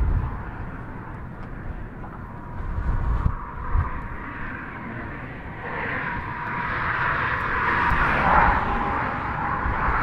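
Road traffic noise that swells from about halfway through as a vehicle approaches and passes, over wind gusting on the microphone in the first few seconds.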